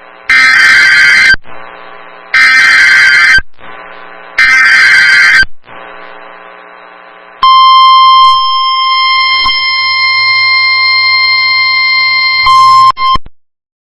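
Emergency Alert System header: three short, loud, screeching data bursts about a second apart, followed by one long, steady attention tone that cuts off abruptly. Together they announce a coming emergency alert, here a winter storm warning.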